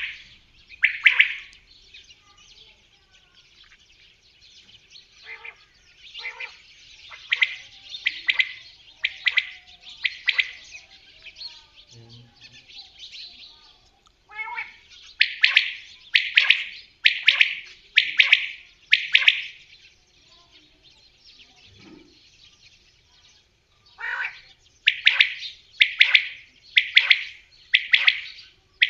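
Gamebird calling: bouts of loud, harsh repeated notes about one a second, with quieter calls between the bouts.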